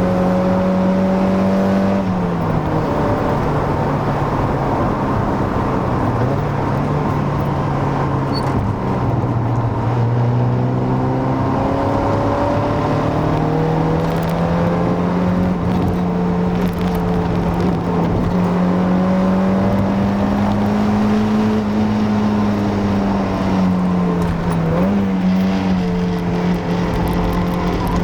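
Mazda Miata NA 1.6 four-cylinder engine pulling through the gears on stock exhaust and an open K&N intake: the engine note falls with a shift or lift-off a couple of seconds in and again mid-way, climbs slowly under load, and near the end drops and gives a quick rev blip before carrying on.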